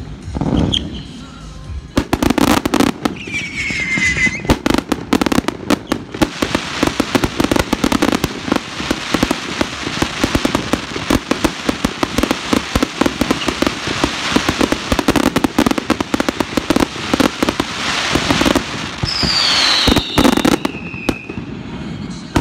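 Daylight fireworks display: a rapid barrage of bangs and crackling that builds to a dense stretch in the middle, with a falling whistle early on and another near the end.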